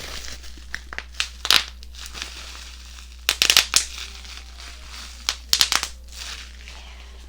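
Plastic packaging being handled and unwrapped, crinkling, with three quick runs of sharp crackles and pops about two seconds apart.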